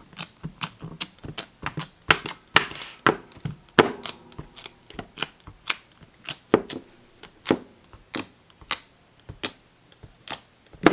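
A dust-removal sticker being dabbed repeatedly on a phone's glass screen, giving a run of sharp ticks, about two to three a second and unevenly spaced.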